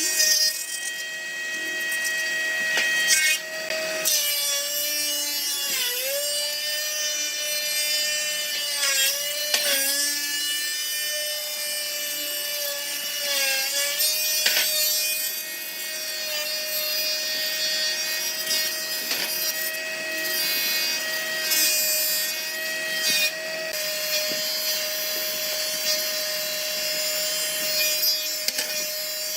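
Power tool motor running steadily while cutting wood. Its whine sags in pitch briefly three or four times in the first half, as the cut loads it, with a rasping sound of the wood being cut over it.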